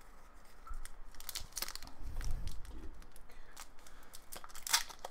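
Hockey card pack wrapper crinkling and trading cards being handled: scattered sharp crackles, louder near the end, with a dull low thump about two seconds in.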